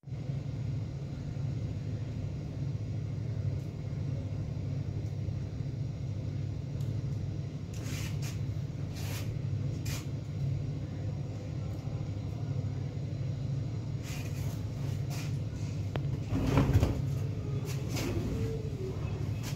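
Steady low room hum with scattered light clicks and handling noises. Near the end comes a louder rush of fabric as a large tablecloth is shaken out.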